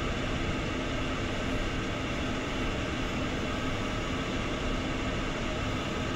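Steady cockpit noise of an Embraer Phenom 300E's twin turbofans idling on the ground, an even rush with a faint steady hum under it.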